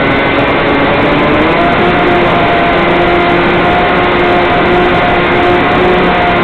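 Small electric RC airplane's motor and propeller running steadily, heard from the plane's onboard camera with heavy wind rush over the microphone; the motor's pitch steps up about one and a half seconds in and holds.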